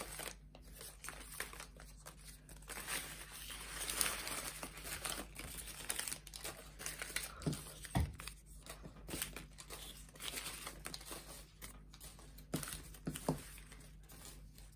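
Folded origami paper units rustling and crinkling as hands pick them up, shuffle them and slide them across a wooden table, with a few soft knocks about halfway through and again near the end.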